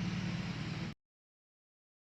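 Vehicle engine idling steadily, cut off abruptly to dead silence about a second in.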